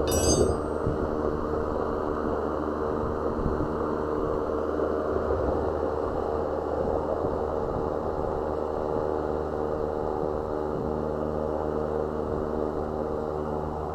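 A BMW's engine idling with a steady hum, and a brief high squeak at the very start.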